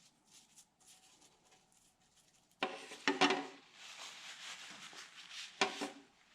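Metal engine parts being handled on the bench: two sharp metallic clanks with a brief ring, then rubbing and scraping and another knock as a part is shifted and set in place.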